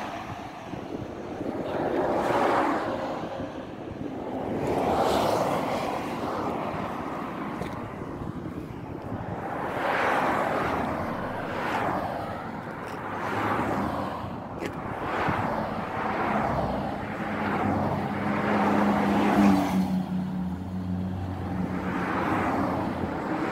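Highway traffic: vehicles passing at speed one after another, each one swelling and fading, about every two to three seconds. A lower engine hum joins for a few seconds in the second half.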